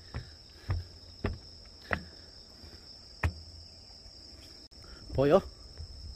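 Crickets and other insects chirring in a steady high-pitched chorus, with several footsteps knocking on wooden deck boards in the first few seconds.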